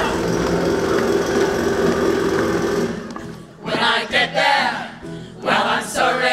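Live band holding a sustained chord on keyboard and electric guitar, which dies away about three seconds in. Short bursts of voices follow.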